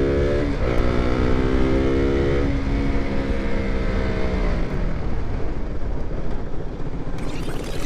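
Single-cylinder KTM motorcycle engine pulling through the gears: its note climbs and drops at each upshift, about half a second and two and a half seconds in. Around four and a half seconds in the throttle closes, the engine note falls away, and a steady rushing of wind and road noise remains.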